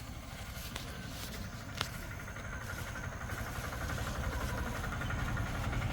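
A motor vehicle's engine running and growing steadily louder as it approaches, with a couple of faint clicks near the start.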